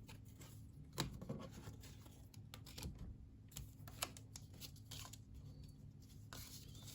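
Faint handling of trading cards: a few soft taps and scrapes as cards are slid and laid down on a table, the clearest about a second in and near four seconds in.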